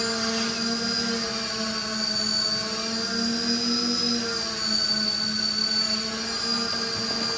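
Six brushless motors (Avroto 770kv) spinning 11x5 propellers on a 900mm hexacopter hovering overhead: a steady buzzing hum with a high whine above it, the pitch wavering slightly as the motors hold the craft in the air.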